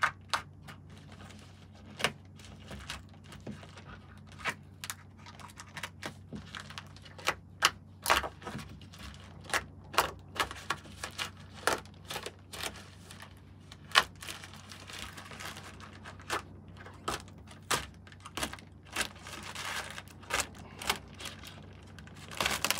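Black plastic wrapping being torn and pulled off a cardboard box by hand: an irregular run of sharp crackles and snaps, with stretches of crinkling, loudest at the very end.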